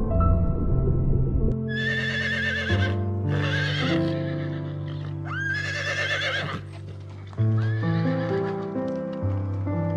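Horse whinnying about four times, each call a quavering neigh lasting about a second, over steady background music.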